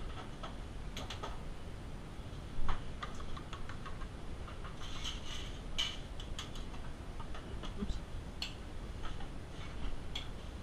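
Scattered small clicks and taps of hands working food in a stainless steel mixing bowl, with one louder knock about two and a half seconds in, over a low steady kitchen hum.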